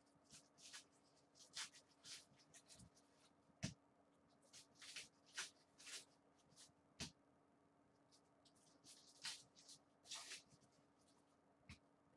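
Faint crinkling of a foil trading-card pack wrapper and cards sliding and being handled by gloved hands, in short scattered rustles with a couple of sharper clicks.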